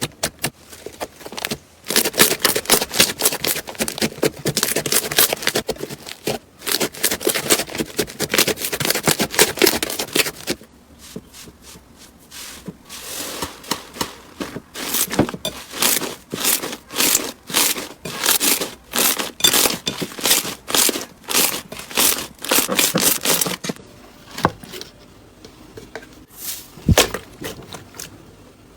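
Slime being squeezed and pressed by hand, crackling and popping as air pockets burst. A dense run of crackles gives way, about ten seconds in, to slower, regular pops, then only a few scattered clicks near the end.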